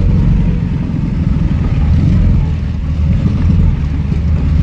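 ZAZ-965 Zaporozhets' rear-mounted air-cooled V4 engine running steadily with a low-pitched drone, heard from inside the small car's cabin as it drives over a rutted track.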